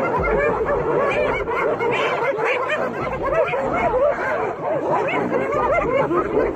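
A pack of spotted hyenas calling all at once as they mob a lioness: a dense chorus of many overlapping short yelps and giggling calls, each rising and falling in pitch.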